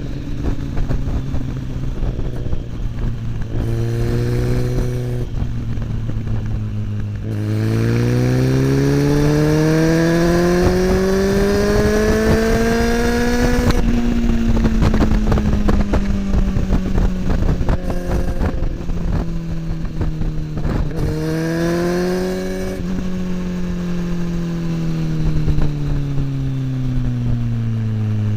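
Kawasaki ZX-10R inline-four with an Akrapovic slip-on exhaust, ridden: the engine note drops back at first, then about a quarter of the way in climbs steadily for around six seconds under acceleration. It then eases off slowly, rises briefly again about three-quarters through, and falls away near the end.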